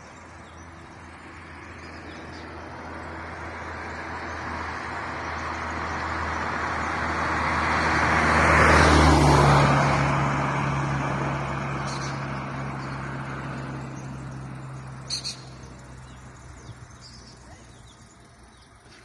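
A motor vehicle drives past, growing steadily louder for about nine seconds, then its engine note drops in pitch and fades away. A couple of brief bird chirps come through as it fades.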